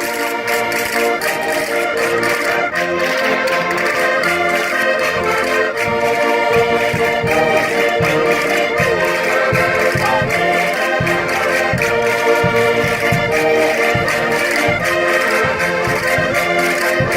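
Concertinas playing a lively Minho folk-dance tune, with sustained reedy chords and melody over a steady low thumping beat.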